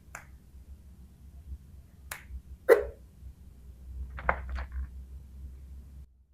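Small plastic toys clicking and tapping against each other, about five sharp knocks spread out, the loudest a little before halfway, over a low hum.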